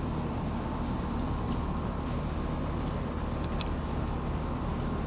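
A steady low mechanical hum, with a few faint light clicks from fish and knife being handled on the table.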